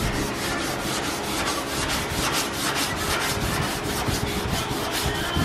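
Sandpaper on a long hand sanding block scrubbing back and forth over a primed fiberglass fender in quick, even strokes: block sanding through the guide coat to level the panel before paint.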